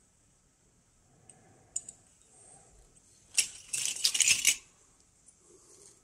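A heap of steel Geiger-Müller counter tubes clinking and rattling against each other as a hand drops into the pile and stirs it: a dense burst of metallic clinks lasting about a second, a little past the middle. It follows a couple of light clicks a little under 2 s in.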